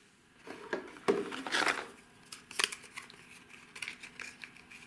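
Hands handling a cardboard phone box and a plastic charger: scattered light clicks, taps and scrapes, with a brief rustle about one and a half seconds in and a sharper click a second later.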